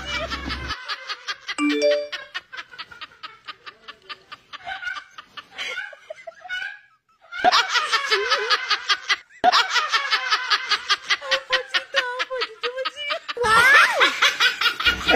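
Fast, rapid laughter over a comic backing-music track, with a short three-note chime about two seconds in.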